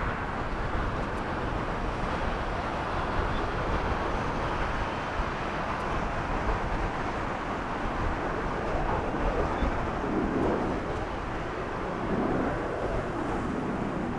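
Twin-engine jet airliner at takeoff thrust during its takeoff roll and lift-off: a steady rush of jet engine noise, with a wavering, sweeping rumble in the second half.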